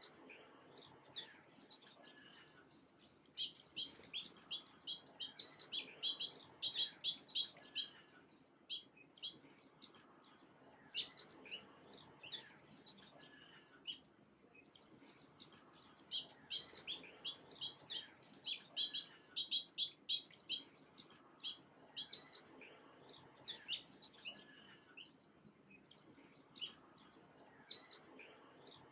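Small birds chirping, with two long runs of quick, high chirps and scattered single calls in between, over a faint steady background hiss.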